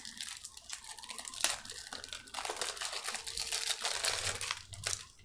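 Plastic wrapping being picked at and torn off a deck of playing cards by hand: a run of crinkling and crackling with a few sharp clicks.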